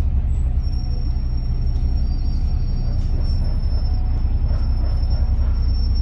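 City bus running, heard on board: a steady low engine rumble, with a thin high whine that comes in about half a second in and holds.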